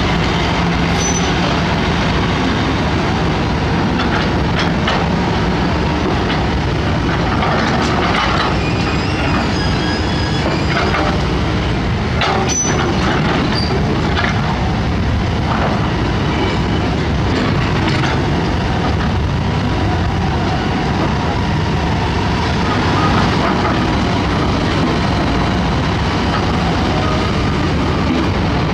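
Heavy construction machinery engines running steadily, with scattered metal knocks and a few brief high squeaks.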